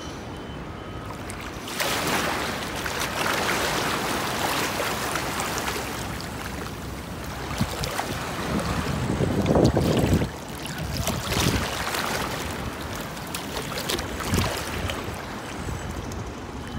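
Shallow sea water washing around the legs and wind blowing on the phone's microphone, swelling and easing in uneven surges, loudest about ten seconds in.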